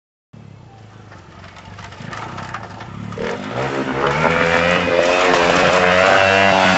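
Engine of an FX Adventure motorised downhill bike revving as the bike rides toward the listener. It grows steadily louder over the first four seconds, and its pitch wavers up and down with the throttle. The sound cuts off suddenly at the end.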